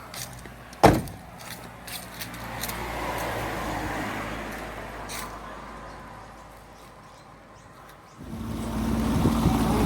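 A sharp knock about a second in, then a rushing noise that swells and fades. A motorboat's engine starts up running steadily at about eight seconds.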